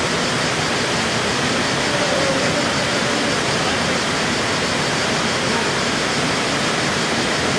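Small waterfall plunging into a pool: a steady, even rush of falling water.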